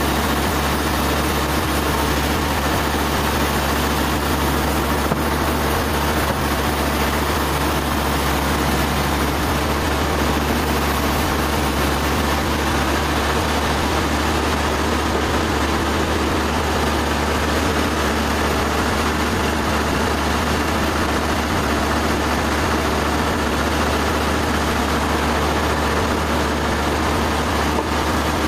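Sawmill engine running steadily with a deep, even hum that does not change.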